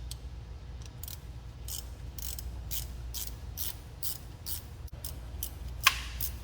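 Socket ratchet clicking in short strokes, about two clicks a second, as a 9/16 socket turns out a 3/8 AC compressor bracket bolt on an International DT466 diesel; one sharper metallic click near the end.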